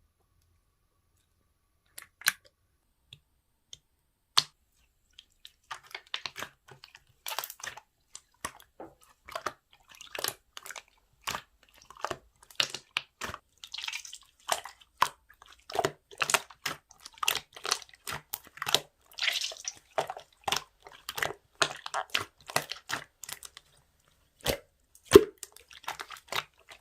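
Slime being pressed and squished by hand, giving irregular sharp clicks and pops. The clicks are sparse from about two seconds in and come thick and fast from about six seconds on.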